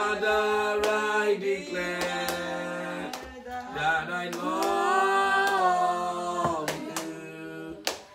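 A man singing a worship song unaccompanied, in long held notes that glide between pitches, with a few sharp claps.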